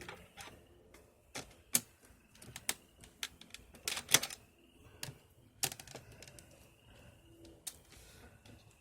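Irregular plastic clicks and knocks, a few of them sharp, from handling the spin side of a portable twin-tub washing machine as the spun coat is taken out.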